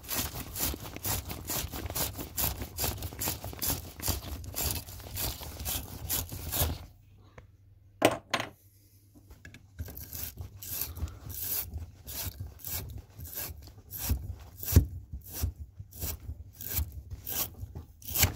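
A deburring and wire pipe-cleaning tool rasping on the cut end of a ½-inch copper pipe in quick back-and-forth strokes, about three a second. This readies the pipe end for a push-to-connect Sharkbite fitting. The strokes stop about seven seconds in, a sharp knock comes near eight seconds, and the scraping resumes from about ten seconds.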